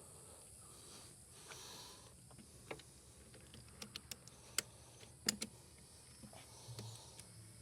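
A scatter of short, sharp clicks and light taps, the two loudest about halfway through, from hand tools and battery terminal hardware being picked up and fitted.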